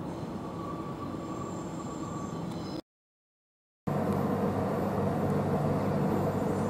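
An electric train approaches with a steady rumble and faint held whines. It cuts off abruptly for about a second. Then comes the louder, steady electric hum of a Skånetrafiken Pågatåg (X61) electric multiple unit running slowly along the platform.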